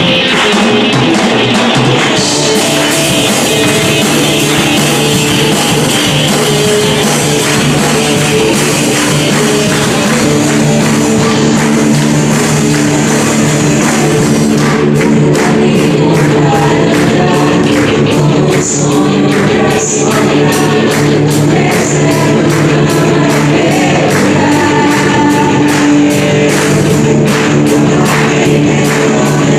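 Live worship band playing an upbeat Christian song, with drums and voices singing. A bright cymbal wash fills roughly the first half, then the drum beat stands out more clearly.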